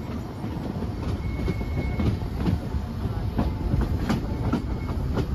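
Narrow-gauge (2 ft 6 in) passenger train running slowly, heard from a coach window: a steady low rumble of the wheels with irregular clicks and knocks over the rail joints. There is a brief thin high tone about a second in.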